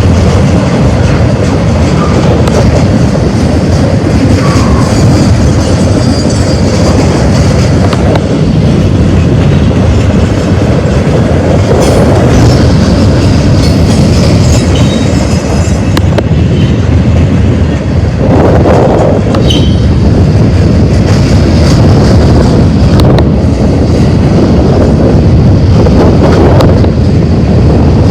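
Freight cars of a manifest train rolling past, wheels clacking over the rails in a steady loud rumble, with brief high wheel squeals now and then.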